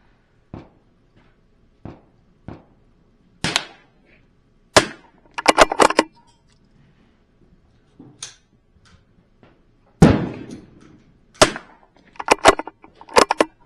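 .22 LR rimfire rifle firing: two sharp shots about five seconds apart, with clusters of quieter metallic clicks of the action being worked around them.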